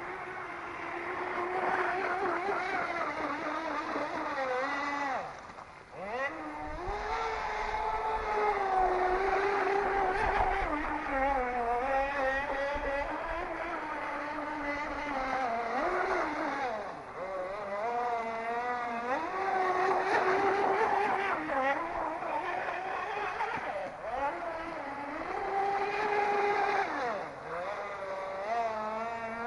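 RC power boat's motor whining as the boat runs across the water, its pitch rising and falling with the throttle and dropping away briefly about six seconds in.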